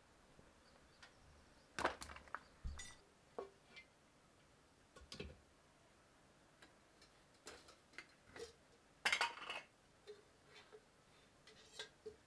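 Scattered clinks and knocks of metal cooking pots and containers being handled, with a louder rattling clink about nine seconds in.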